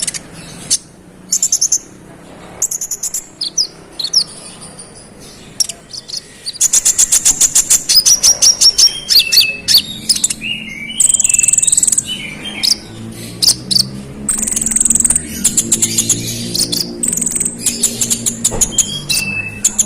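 Brown-throated sunbird (kolibri ninja) singing: a few short high chirps, then from about a third of the way in, fast rattling trills and chirps that run on almost without a break.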